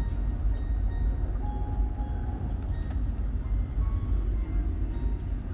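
Steady low rumble of a passenger train running, with faint thin tones and a few light ticks over it.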